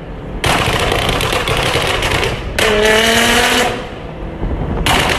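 Nissan GT-R R35's twin-turbo V6 exhaust under acceleration, heard from a following car: a loud, rapid crackle, with a rising engine note from about two and a half to three and a half seconds in, easing off, then loud again near the end.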